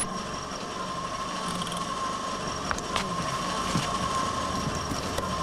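Car engine running at low speed as a car pulls into the road, with a steady high whine behind it and a few light ticks.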